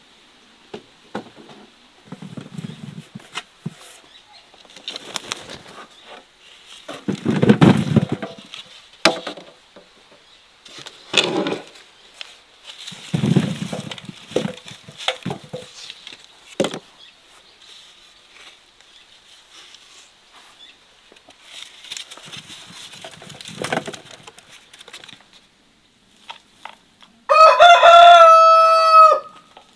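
Fruit tipped from wooden crates into a large metal basin: several pours of fruit rolling and knocking onto the metal, with rustles and knocks of the crates in between. Near the end a rooster crows once, the loudest sound.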